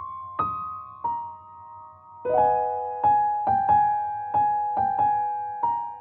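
Background piano music: a slow, gentle melody of single struck notes that fade, joined by fuller chords from about two seconds in.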